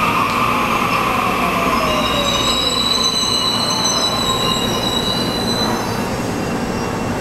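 KTX-Sancheon high-speed trainset rolling slowly through a station. A faint whine falls in pitch over the first couple of seconds, then high-pitched wheel squeal rings out from about two seconds in until about six seconds in, over a steady rumble.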